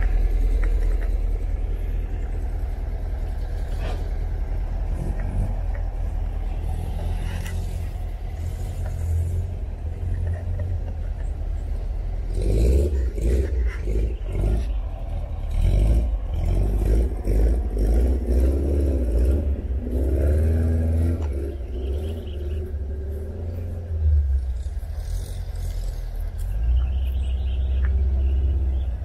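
Car engine running, its pitch rising and falling through the middle stretch, over a steady deep rumble.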